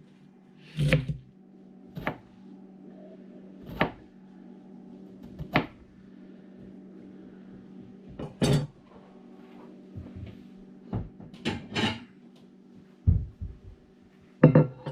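Knife chopping cabbage on a cutting board: single sharp knocks every second or two, then several in quick succession near the end, over a steady low hum.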